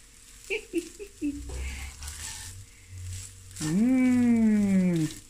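A woman's voice holding one long wordless note of delight for about a second and a half near the end, its pitch sliding down. Beneath it, cooked rice is being stir-fried with a wooden spoon in a stainless steel pan, with a faint sizzle.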